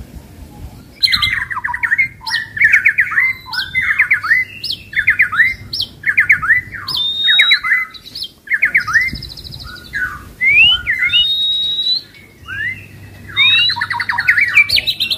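Caged oriental magpie-robins (kacer) singing loudly, starting about a second in: fast, repeated whistled phrases broken by rising notes.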